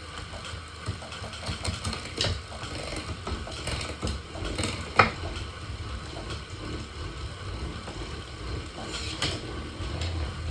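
SRAM Force AXS bicycle drivetrain running with a steady low hum and irregular clicking, and one sharp, loud click about five seconds in: the unwanted drivetrain noise that the owner calls terrible.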